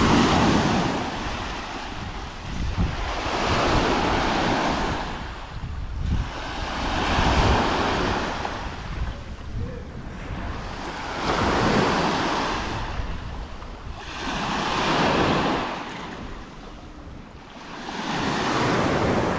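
Small waves on Lake Malawi breaking and washing up a sandy shore, with a swell of surf about every four seconds. Wind rumbles on the microphone underneath.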